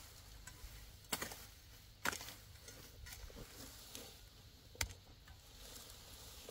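Hoe blade chopping into soil and weeds, three sharp strikes standing out among softer scrapes and rustling of cut plants.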